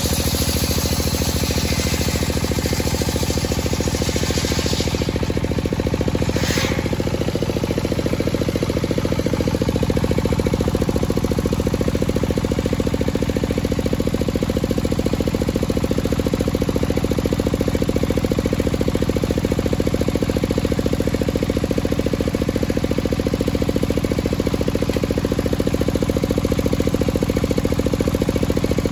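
Large circular saw ripping a dry teak beam: a loud hissing rasp of the blade through the wood for the first five seconds or so. After that the blade spins free, and the rest is a steady mechanical hum from the saw's drive.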